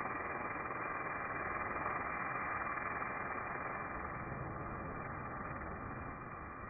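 Pressure washer running steadily, its water jet giving a constant hiss.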